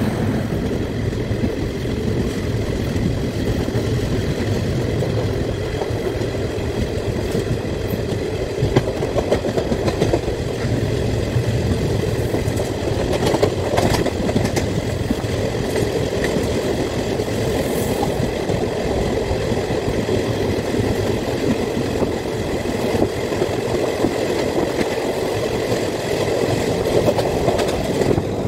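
Long freight train of covered BCN wagons running past on the adjacent track at close range: a steady rumble of steel wheels on the rails, with a few sharp clanks from wheels crossing rail joints.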